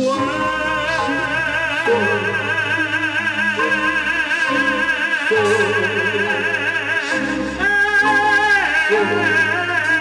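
Four singers singing together through a PA over live band accompaniment, holding long notes with wide vibrato. A louder held note comes in about three-quarters of the way through.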